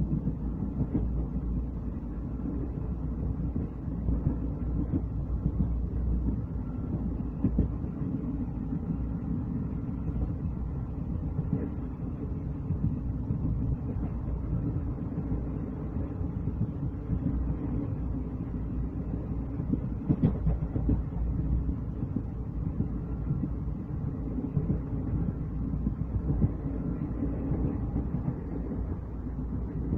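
Indian Railways train running along the track, heard from the coach window: a steady low rumble of wheels on rail with a dense rattle of small clacks, and one sharper knock about two-thirds of the way through.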